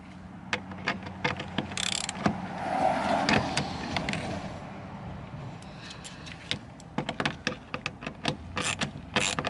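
Irregular metal clicks and rattles of a hand tool driving the bolt back in that holds a car's interior door handle assembly inside the door, with a longer scraping rush about two to four seconds in and a quicker run of clicks near the end.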